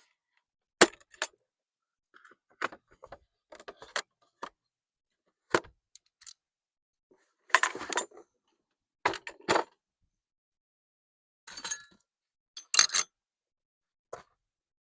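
Metal hand tools clinking and clattering in a toolbox as someone rummages for a wrench, in scattered irregular bursts every second or two, the loudest cluster near the end.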